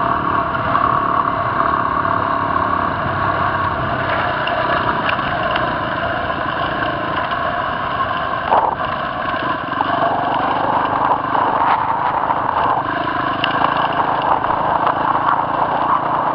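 A motorcycle engine running steadily while under way over rough ground, with a single knock a little past halfway.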